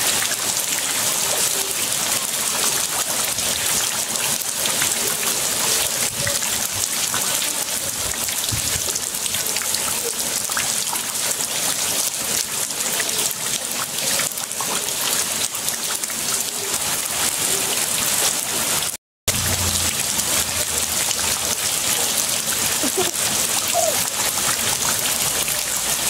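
Heavy rain falling steadily into standing floodwater and onto a wet concrete slab, a dense, even hiss of splashing drops. The sound cuts out for an instant about 19 seconds in.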